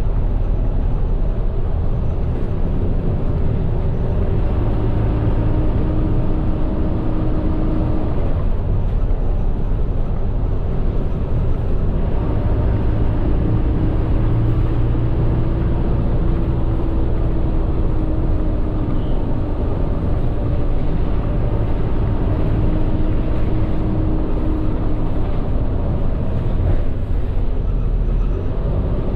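Medium bus driving, its engine and road noise heard from inside the cabin as a steady rumble. A thin whine comes in twice, briefly and then for a longer stretch.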